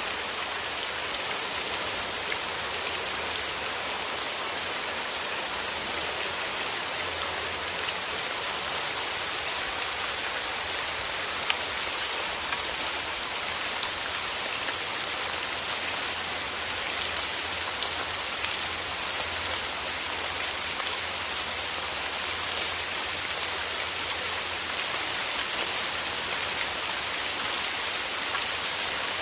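Steady rain falling, with many small sharp drop ticks over an even hiss of rainfall.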